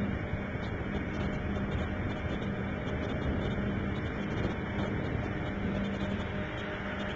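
A motor or engine running steadily: a constant drone with an even hum under a wash of noise, unchanging throughout.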